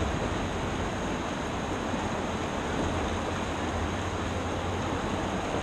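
Steady rushing of whitewater on the Gallatin River.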